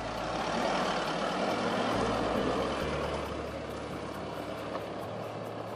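Isuzu MU-X's 3.0-litre 4JJ1 turbo-diesel engine and tyres crawling over a rough sandstone 4WD track. The sound is loudest in the first few seconds as the vehicle passes close, then eases as it moves away. Background music with a steady beat plays underneath.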